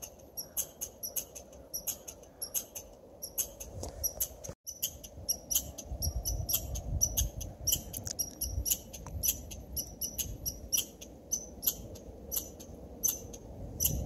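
Short, high-pitched squeaky chirps from a small animal repeat irregularly, about two or three a second. A low rumble swells in the middle, and the sound cuts out for an instant about four and a half seconds in.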